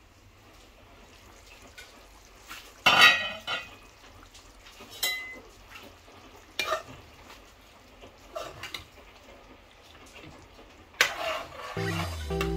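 Spatula stirring and scraping in a pan of frying food, in about six separate strokes, the loudest about three seconds in, over a faint steady sizzle. Guitar music begins near the end.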